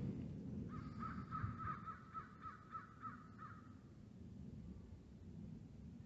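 A bird calling a quick series of about a dozen short, pitched notes, about four a second, for about three seconds, over a low steady background rumble.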